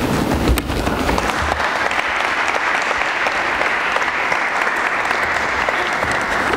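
Audience applauding, swelling over the first couple of seconds and then holding steady until it stops near the end.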